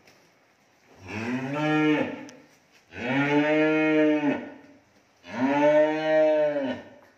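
Young cattle mooing three times, each moo a long call of about a second and a half whose pitch rises and then falls.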